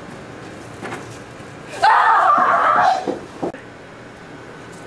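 A loud, high-pitched vocal outburst lasting about a second, starting a little under two seconds in, followed by two short sounds.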